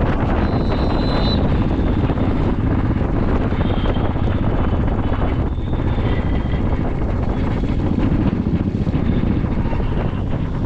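Royal Enfield single-cylinder motorcycle engine running steadily while riding, heard from the rider's camera together with wind rush on the microphone.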